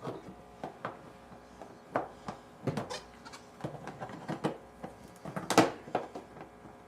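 Plastic parts of an unplugged animatronic Minion clicking and knocking as they are handled and fitted together: scattered light knocks, with one sharper knock about five and a half seconds in.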